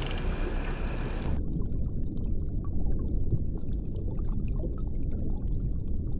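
Sea-surface ambience of wind and waves washing. About a second and a half in it cuts abruptly to muffled underwater ambience: a low rumble of water with faint scattered crackling.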